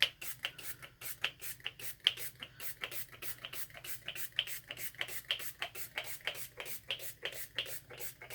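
Trigger spray bottle spritzing over the soap tops, many quick sprays in a row at about five a second.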